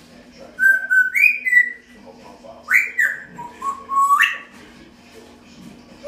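African grey parrot whistling a few short calls: a held note that steps up in pitch, then a quick rising whistle and a low note that slides up, with some clicky smacking sounds mixed into the first call.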